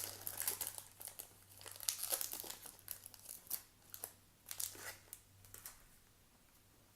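The wrapper of a baseball card pack being torn open and crinkled: a run of sharp crackles and rips that dies away about six seconds in.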